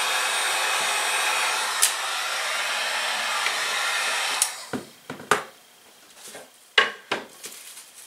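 Handheld heat gun running with a steady blowing hiss as it melts a seal line through the thin plastic, switched off about four and a half seconds in. A few sharp knocks follow as the gun and the wooden board are handled.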